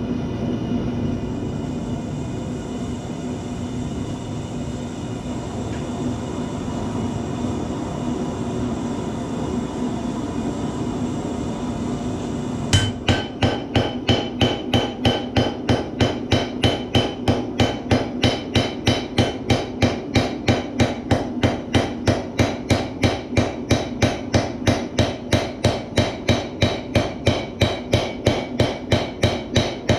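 A steady burner roar, then from about thirteen seconds in a hand hammer striking a glowing Damascus billet on the anvil, about three even blows a second. These are the blows that set the forge welds in the layered billet. The roar carries on under the blows.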